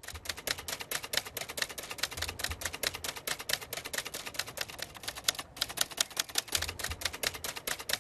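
Typewriter keys struck in a fast, steady run of sharp clacks, several a second, with a brief pause about five and a half seconds in.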